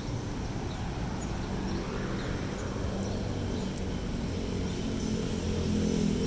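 Road traffic on a city street: a steady rumble of passing vehicle engines, one engine growing a little louder in the last couple of seconds.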